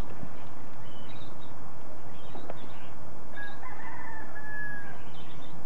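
A rooster crows once about three and a half seconds in, one call lasting about a second and a half.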